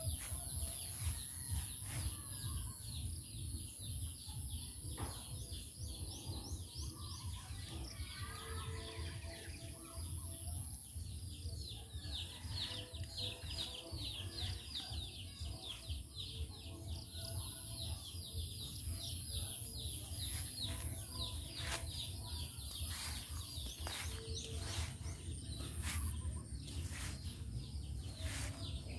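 Birds chirping outdoors in fast runs of short chirps, thickest through the middle, over a steady high-pitched whine and a low rumble.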